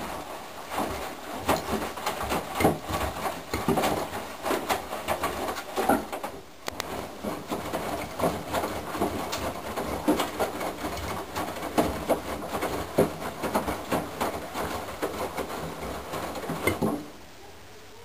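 Candy GrandO Plus front-loading washing machine turning its drum during a 40 °C wash: the wet clothes and water slosh and thud as they tumble, with many irregular clicks and knocks. The tumbling starts suddenly, falters briefly about a third of the way in, and stops abruptly about a second before the end as the drum comes to rest.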